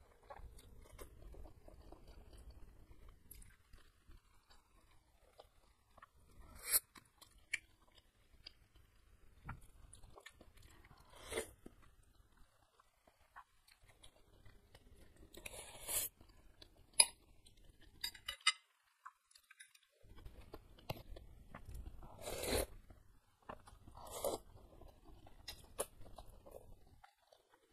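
Close-miked eating sounds: chewing and slurping of thin noodles in spicy broth, with a handful of louder, sharper slurps and mouth noises scattered among quieter chewing.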